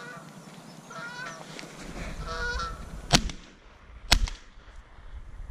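Flying geese honking in three short bouts of calls, then two shots about a second apart from a Browning A5 12-gauge semi-automatic shotgun. The shots are the loudest sounds.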